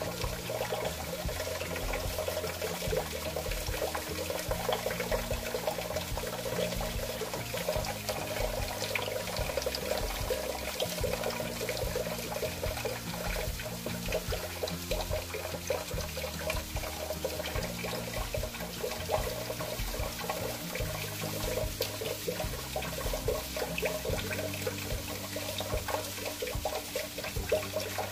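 Thin stream of water running steadily from a kitchen tap into a stainless-steel sink, with soft background music underneath.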